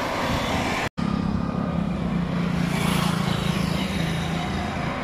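Motor vehicles passing on a roadside: engine hum and tyre noise, with a brief dropout about a second in. One vehicle's engine swells to its loudest about three seconds in, then fades near the end.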